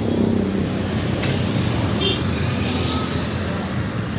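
Yamaha Jupiter Z's single-cylinder four-stroke engine, built to 155 spec, running steadily through a newly fabricated 32 mm exhaust header and racing muffler during its sound check.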